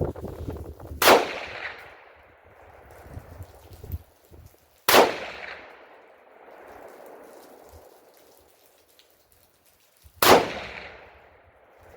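Egyptian Hakim semi-automatic rifle firing three single 8mm Mauser shots, about four and five seconds apart. Each shot is followed by a trailing echo that dies away over a second or so.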